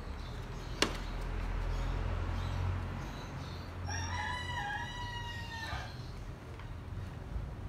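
A single sharp snap about a second in, as a plastic clip of the Toyota Hilux Revo's front grille pops loose. About four seconds in a rooster crows once, a long call of nearly two seconds, over a steady low hum.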